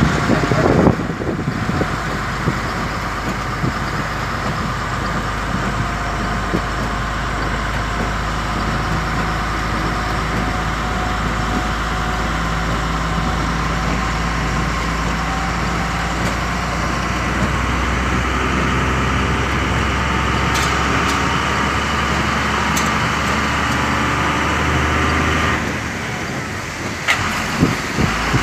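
Truck's diesel engine running with road noise, heard from inside the cab while driving at a steady speed. Near the end the engine note drops, and a few sharp knocks follow.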